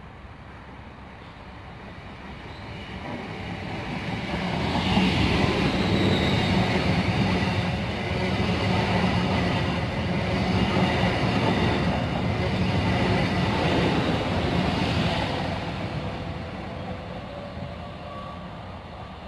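A Hitachi Class 800 IEP train passing through a station at speed. It grows louder as it approaches, runs loudly past for about ten seconds with wheel and rail noise, then fades as it draws away.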